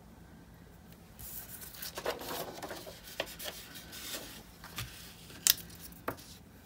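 Paper rustling as a disc-bound planner's pages are lifted and the planner is turned around on a wooden table, followed by a few sharp clicks and taps.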